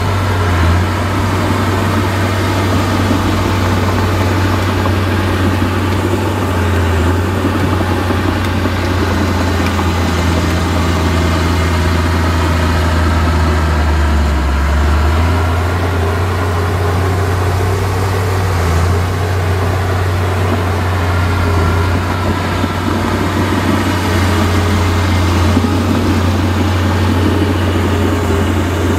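Heavy diesel engine of earthmoving machinery running steadily, a continuous low engine note.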